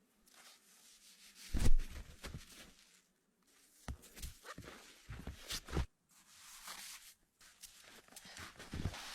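Irregular crunches and scrapes of packed snow being cut and dug out with a tool, the loudest stroke about a second and a half in.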